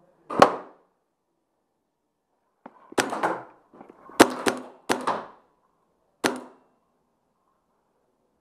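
Paintball fire: about eight sharp cracks. One comes near the start, pairs in quick succession follow from about three to five seconds in, and a last one comes near six seconds. Each has a short ringing tail.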